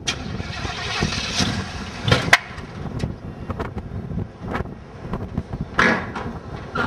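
Chevrolet Monte Carlo SS V8 running on a Holley 600 carburettor that sticks wide open, so the engine is held at a high, rough speed even though the throttle lever is not moving. A couple of sharp knocks sound over it, about two seconds in and again near six seconds.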